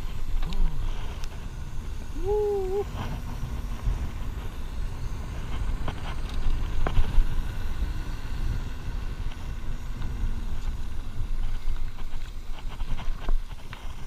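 Wind buffeting the microphone over the low rumble of a mountain bike rolling along a paved path, with scattered small clicks and rattles from the bike. About two seconds in, a brief rising tone sounds.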